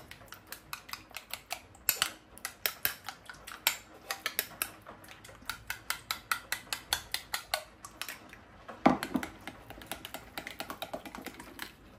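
A utensil whisking yogurt in a bowl for raita, knocking against the bowl in quick, steady clicks about four times a second, with one heavier knock near the end.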